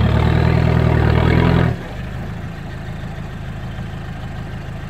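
Lada Niva's engine held at high revs for nearly two seconds as the stuck off-road car strains against a tree, then cut back abruptly to a steady idle.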